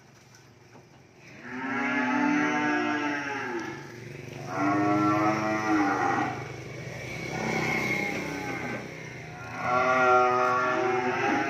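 Calves mooing: four long calls of about two seconds each, the third one fainter.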